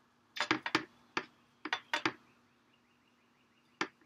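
Sharp clicks and taps of a paintbrush against a metal watercolor tin as paint is picked up and mixed. There is a quick run of taps in the first two seconds, a pause, then one more tap near the end.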